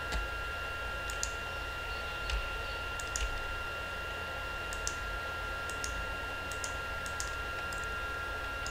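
Computer mouse and keyboard clicks, a dozen or so short, sharp clicks scattered irregularly over a steady faint high whine.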